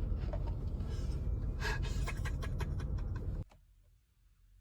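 A steady low rumble with a few short clicks, cutting off abruptly about three and a half seconds in to near silence.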